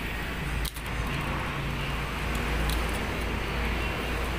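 A steady low background rumble runs under faint, light metallic clinks of camshaft parts being handled on a bare cylinder head. The sound briefly drops out about three-quarters of a second in.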